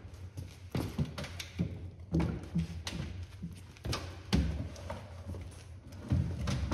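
Large blocks of rendered beeswax being handled on a stacked pallet: irregular dull thunks and knocks as the heavy wax blocks are lifted and bumped and set against one another, over a steady low hum.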